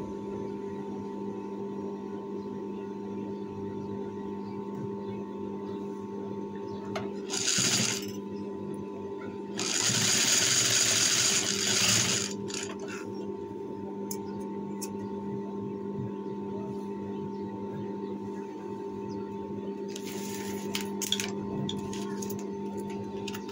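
Industrial sewing machine: a steady motor hum throughout, broken by runs of stitching. There is a short run about a third of the way in, a longer, louder run of about two and a half seconds soon after, and another short run near the end, with a few light clicks.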